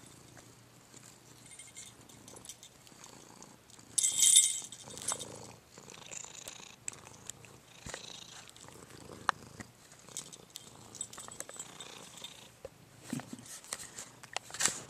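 A house cat purring close to the microphone, with rustling and knocks from handling, loudest about four seconds in and again near the end.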